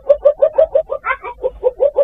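Asian palm civet's mating call: a fast, even series of short pitched notes, about seven a second, with a higher note overlapping about a second in.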